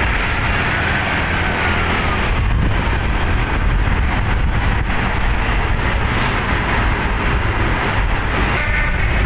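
Steady rumble of a heavy road vehicle's engine and road noise. Near the end, a bus's multi-note telolet air horn starts to sound.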